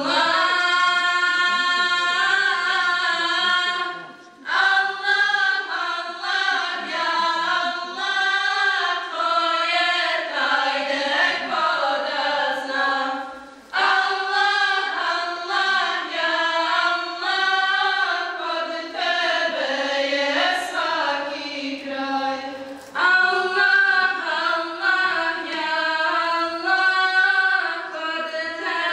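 Choir singing an ilahija, a Bosnian Islamic devotional song, without instruments. The melody moves in long sung phrases broken by short pauses about 4, 14 and 23 seconds in.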